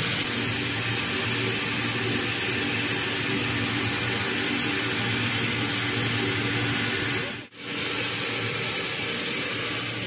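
Sawmill machinery running steadily, a continuous hiss over a low hum, while no cut is being made. The sound drops out abruptly for a split second about seven and a half seconds in, then carries on.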